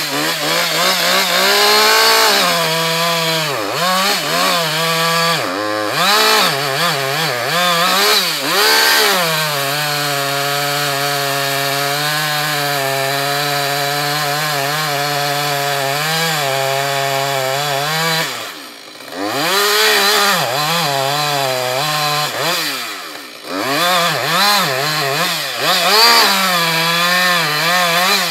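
Two-stroke chainsaw revving up and down, then held at high revs for about eight seconds. It drops off sharply twice, near the two-thirds mark, before revving on again.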